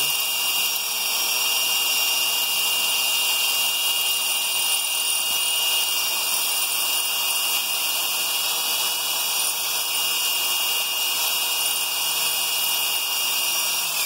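Electric drill running steadily, its 7/32-inch Bosch masonry bit boring an anchor hole into brick and cutting quickly, with a constant high whine.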